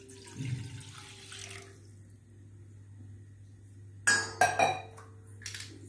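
Milk pouring into a nonstick frying pan, stopping about two seconds in. About four seconds in comes a short cluster of louder clinks and knocks, the loudest sounds here, with one more near the end.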